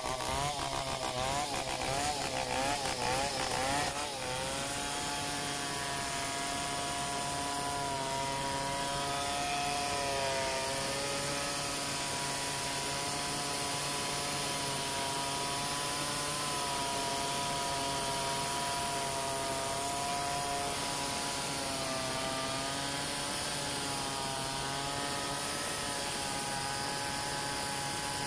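Two-stroke chainsaw running under load while ripping lengthwise through a log in a freehand milling cut. Its pitch wavers quickly for the first few seconds, then holds steadier with slow drifts as the cut goes on.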